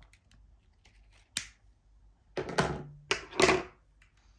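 A sharp snip of small scissors cutting stiff monofilament chod line, followed by a few knocks and clatters as the scissors and the cut line are put down on a hard table top.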